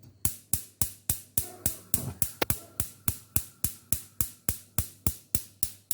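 Gas stove's electric spark igniter clicking rapidly and evenly, about three to four sharp clicks a second, as the burner is being lit.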